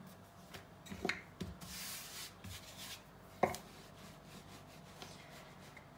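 Wooden rolling pin rolling thin lavash dough over a floured countertop: a soft rubbing hiss in the middle, with a few light knocks.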